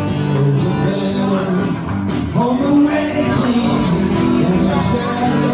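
Music: a song with singing and guitar.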